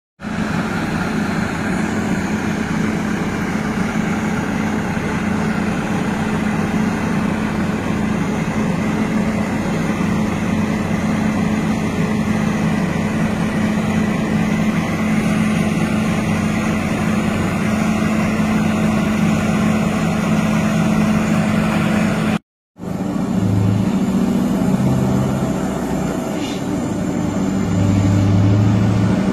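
Heavy Scania tractor unit's diesel engine running steadily with a deep, even hum. After a brief cut three-quarters of the way through, a heavy truck engine pulling an excavator on a low-loader changes pitch and grows louder as the truck approaches.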